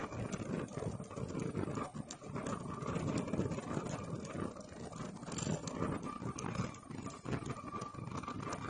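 Shower cap making machine running: a fast, continuous clatter of knocks from its feed rollers and mechanism, over a steady high whine.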